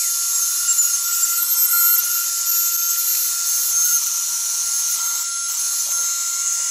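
CNC 6040 router's 1500-watt water-cooled spindle cutting, with a dust-extraction vacuum hose held at the cutter: a steady high whine over a hiss.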